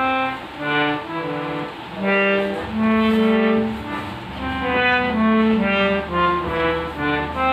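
Harmonium being played: a melody of short and held reedy notes, with a low note sustained underneath from about halfway through.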